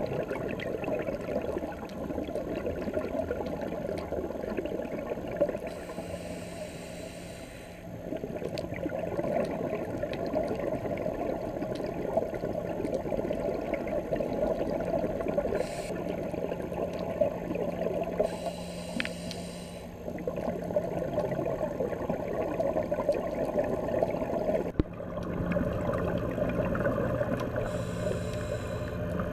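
Scuba diver breathing through a regulator underwater: long stretches of exhaled bubbles gurgling, broken three times by the short hiss of an inhalation.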